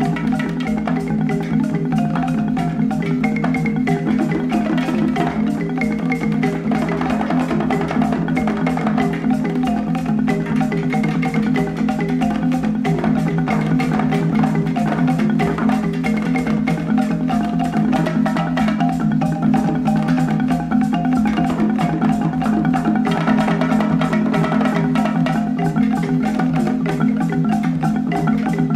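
Instrumental background music with fast, busy repeated notes over a steady beat.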